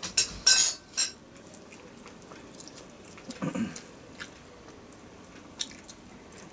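A child biting and chewing a piece of smoked chicken held in the hands, with a few loud, sharp rustling noises in the first second and scattered small clicks after.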